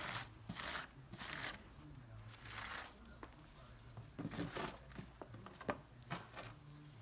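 A grout tool scraping wet grout across a glass-and-ceramic mosaic in a series of rasping strokes, loudest in the first second and a half, then a few shorter scrapes and light knocks as the tool is lifted and laid down on the panel.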